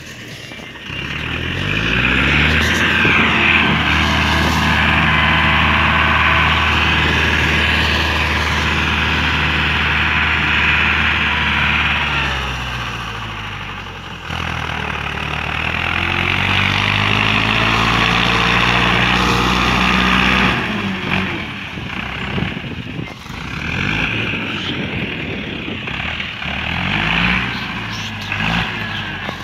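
Farm tractor's diesel engine running under load as it pulls a disc harrow through bare soil, its note rising and falling as it passes and becoming quieter after about twenty seconds.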